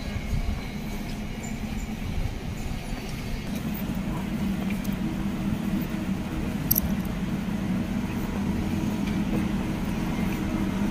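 Street noise giving way, about halfway through, to a steady low hum from a tram standing at its stop, growing slowly louder. One short sharp click about two-thirds of the way in.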